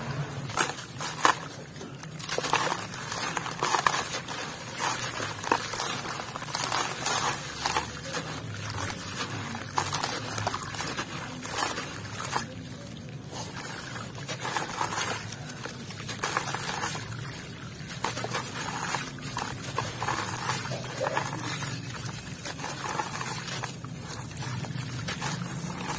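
Wet lumps of sandy cement being squeezed and crumbled by hand in a basin of water. Gritty grains and chunks pour and splash back into the water in uneven bursts.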